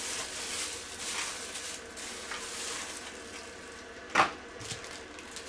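Crinkly rustling of plastic and paper packaging being handled, with one sharper tap or knock about four seconds in.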